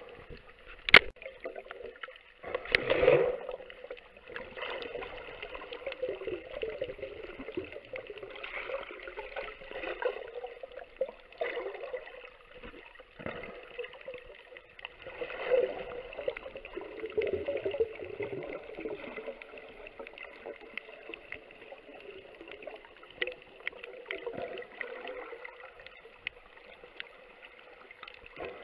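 Muffled underwater gurgling and sloshing of water, swelling and fading every few seconds, with one sharp click about a second in.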